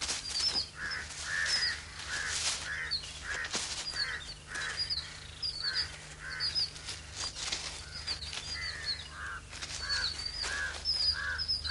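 Birds calling over and over, short harsh notes about twice a second, over a steady low hum.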